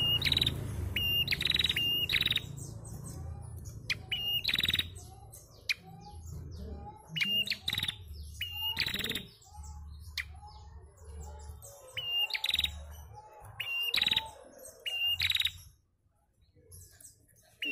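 Female prenjak calling: sharp, high chirps in short runs of two to four, repeated every few seconds, with softer, lower chirps of other birds behind and a low rumble underneath. It is the female's call that bird keepers play to stir a young prenjak into singing.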